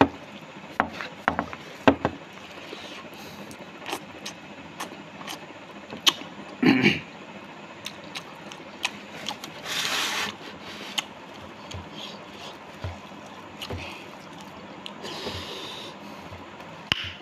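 Close-up eating sounds: scattered sharp smacks and clicks of chewing and lips as rice is eaten by hand, with a louder smack about seven seconds in and a short breathy rush near the middle.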